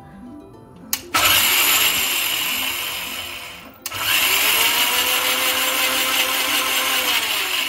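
Electric mixer-grinder grinding soaked basmati rice with a little water in quick pulses. The motor starts with a click about a second in, slows and stops just before the four-second mark, then spins up again and runs steadily to the end.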